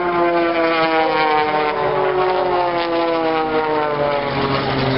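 An aircraft passing by, the pitch of its engine sound falling steadily as it goes past.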